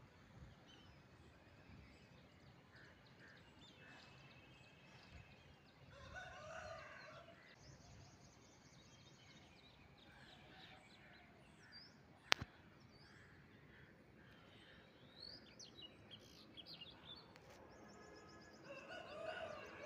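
Faint outdoor ambience with scattered bird chirps and calls, and one sharp click about twelve seconds in.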